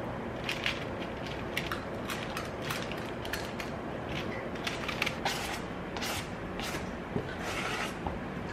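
Metal spring-loaded scoop scraping against a stainless steel mixing bowl and its lever clicking as dough is pressed out onto parchment paper: a series of short scrapes and clicks, with a longer scrape near the end.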